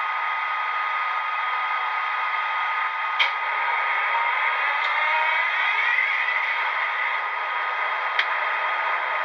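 Sound-fitted model Class 68 diesel locomotive idling through its small onboard speaker: a steady, thin engine hum. Sharp clicks come about three seconds in, near five seconds and about eight seconds in, with a brief rising whine around five to six seconds.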